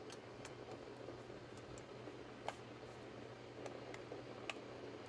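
Faint steady hum in a quiet room, with about eight light scattered clicks; the sharpest come about two and a half seconds in and near the end.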